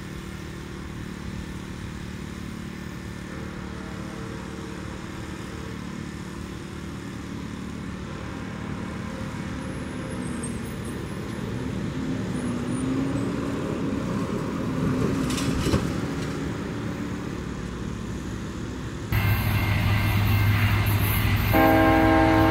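Road traffic for most of the stretch, with one vehicle going by in the middle. About three seconds from the end a loud low drone starts abruptly. A train's air horn then sounds a steady chord.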